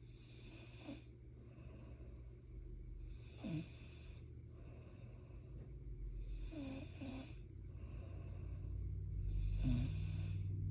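A person snoring: four breaths about three seconds apart, each a rush of air with a brief squeak in it, over a steady low rumble that grows louder near the end.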